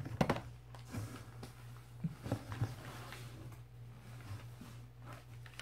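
Scattered rustles and light knocks of packaging being handled: a paper receipt and small grocery boxes moved about in a cardboard shipping box, over a steady low hum.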